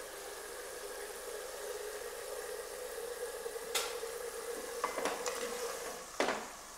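Pieces of lamb frying and sizzling steadily in fat in a pot, with a few sharp clicks and knocks of the spoon on the pot in the second half.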